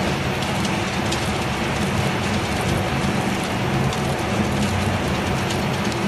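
Puff snack production line running: a steady low machine hum with a fine patter of small clicks from puffed snacks on a moving stainless steel wire-mesh conveyor belt.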